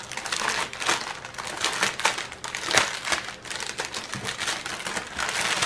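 Crinkling and crackling of a plastic-wrapped bundle of small bags of diamond painting drills being handled and unwrapped by hand, with a run of irregular small crackles.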